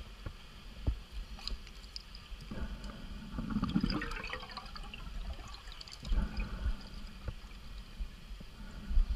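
Scuba diver's exhaled breath bubbling out around the camera underwater, in two bursts: one about three seconds in and a shorter one about six seconds in. A knock near the end.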